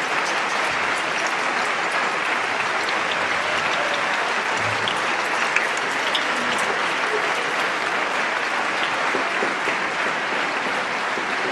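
Large concert-hall audience applauding: a dense, steady wash of many hands clapping that holds even throughout.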